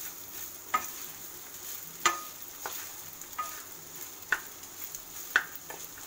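Basmati rice stir-frying in a kadai with a steady sizzle, while a spatula knocks and scrapes against the pan about every second as the rice is tossed and mixed.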